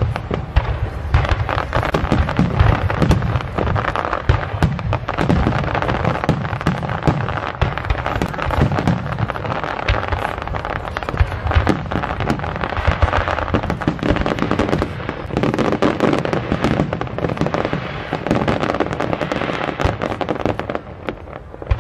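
Aerial fireworks shells bursting in rapid succession: a dense, continuous run of booms and crackles.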